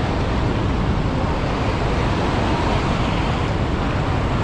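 Swollen, muddy floodwater rushing fast through a river channel: a steady, even rush of water.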